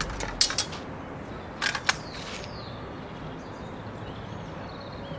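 One-handed steel swords striking each other and small steel bucklers in a sword-and-buckler exchange: a quick burst of three sharp metallic hits about half a second in, then two or three more a little over a second later.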